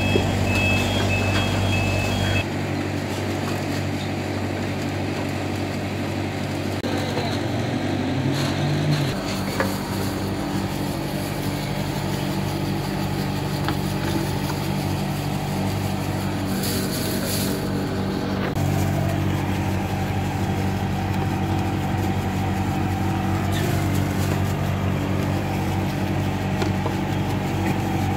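Steady low mechanical hum of a reverse vending machine running, changing abruptly in tone about three times.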